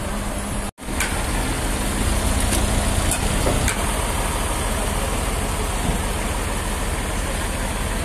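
Engine running steadily with a low hum. The sound drops out abruptly for a moment just under a second in, then resumes unchanged, with a couple of faint clicks.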